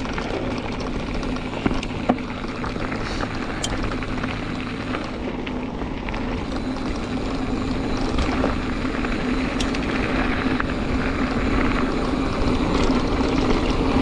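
Giant Fathom 2 29er hardtail mountain bike being ridden on a dirt trail: a steady rush of wind and tyre noise with a couple of sharp clicks about two seconds in, growing louder toward the end.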